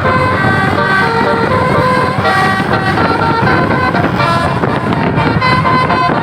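Bus 'telolet basuri' musical horn playing a tune: a quick string of held notes stepping up and down in pitch, over a steady low rumble.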